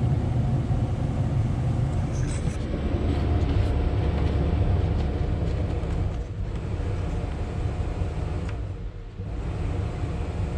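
Volvo L70F wheel loader running with a steady low rumble and a faint hum above it, dipping briefly twice in the second half.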